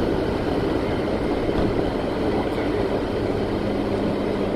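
Steady road and engine noise of a moving car, heard from inside the cabin, with a faint low hum joining about three and a half seconds in.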